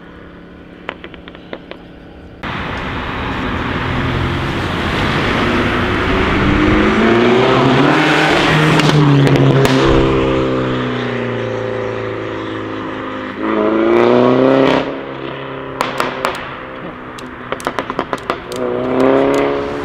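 Mini Cooper S F56's turbocharged four-cylinder through a decat Fi straight-pipe exhaust, accelerating with its pitch rising several times. Bursts of sharp pops and crackles from the exhaust come near the start and again in the last few seconds.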